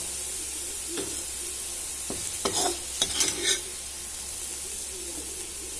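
Garlic cloves sizzling steadily in hot sesame oil in a kadai, with a steel ladle scraping against the pan several times around the middle as the browned cloves are scooped out.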